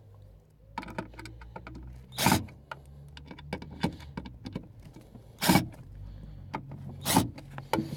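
Cordless drill-driver set to low torque, driving the speaker's mounting screws in three short bursts, with small clicks and handling knocks in between.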